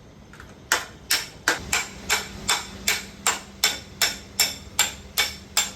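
Hammer blows on metal in a steady rhythm of about two and a half strikes a second, each with a short metallic ring. The blows begin about two thirds of a second in. This is typical of denting work on a motorcycle's sheet-metal parts.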